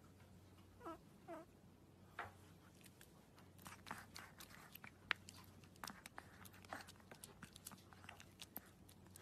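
Faint mouth sounds from a small white puppy: two short squeaky whimpers about a second in, then a run of quick clicks and smacks as its tongue and mouth work.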